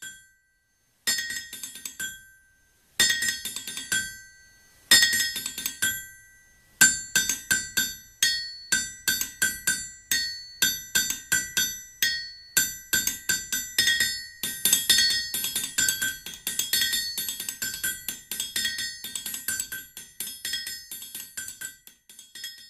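Theme music made of bright struck notes that ring and fade: three single notes a couple of seconds apart, then a quicker, steady melody from about seven seconds in.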